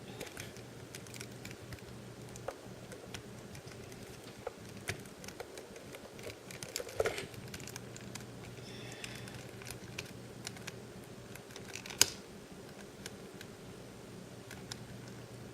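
Small plastic action-figure parts being handled and fitted together: scattered light clicks and taps, with a louder click about seven seconds in and a sharp click about twelve seconds in.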